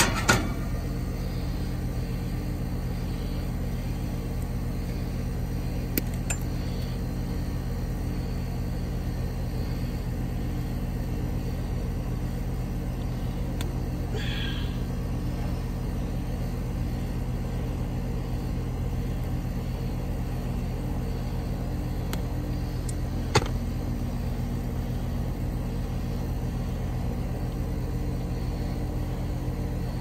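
A steady low machine hum with evenly spaced pitched lines, over which a few sharp clicks and a brief rustle come from wires and a plastic connector being handled. The loudest click comes just at the start and another about 23 seconds in.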